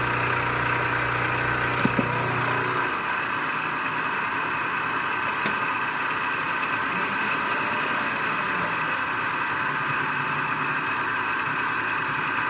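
Milling machine spindle running with an end mill side-cutting a 1018 steel block as the table feeds it past the cutter, a steady machining whine. A low hum drops out about three seconds in, and there are a couple of sharp clicks about two seconds in.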